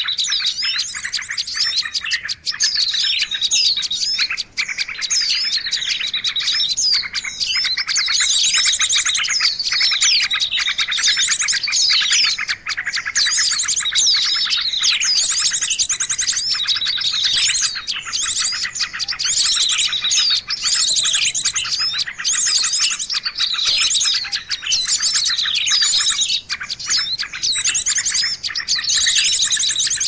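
A dense chorus of many small songbirds calling at once: overlapping chirps, falling whistled notes and rapid buzzy trills with no pause. It is a mixed 'noisy birds' recording of the kind played to lure wild birds in for catching.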